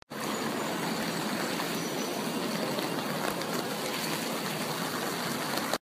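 Heavy rain falling steadily on wet pavement, a constant even hiss that cuts off abruptly near the end.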